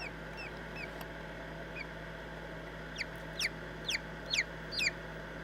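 Hatching chicks peeping from inside their pipped eggs: a series of short, falling peeps, faint at first, then five louder ones in quick succession in the second half.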